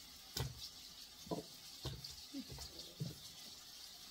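Potato pieces dropped one at a time into a slow cooker's pot, making about five short thuds spread over a few seconds.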